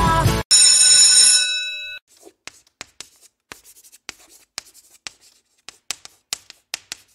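A bright bell-like ding rings out and fades over about a second and a half. Then comes chalk writing on a blackboard: light, irregular taps and scratches as the words are chalked out.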